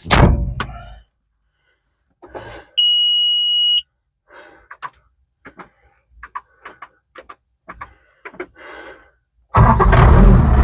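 A heavy thump, then a single steady electronic warning beep about a second long, then scattered light knocks and clicks; near the end a loud engine starts up and keeps running.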